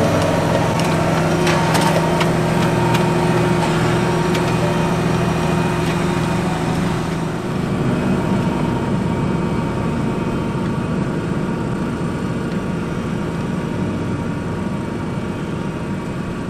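Fendt 724 tractor engine running steadily under load, its pitch shifting slightly about halfway through, with a few sharp cracks in the first couple of seconds.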